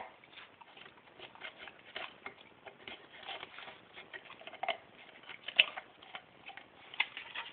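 A Keeshond working at a takeaway coffee cup and its plastic lid, making a run of small, irregular clicks and taps, with a sharper click a little past halfway and another near the end.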